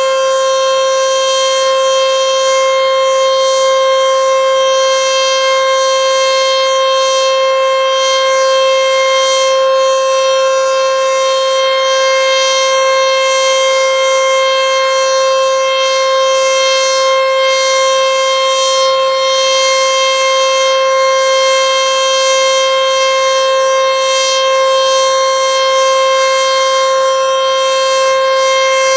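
ACA Screamer S-5 warning siren sounding one loud, steady tone held at constant pitch, with no rise or fall.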